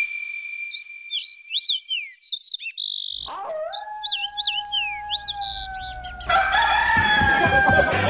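Quick, rising and falling bird-like chirps over a thin steady high tone, then about three seconds in a long, steady, dog-like howl. Music comes back in near the end.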